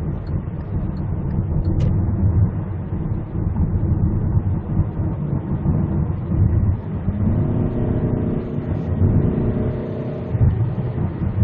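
Kia Carnival minivan's engine under hard acceleration, heard from inside the cabin over steady road rumble, on a full-throttle test run. About seven seconds in, a rising engine tone comes through and climbs, then fades near the end.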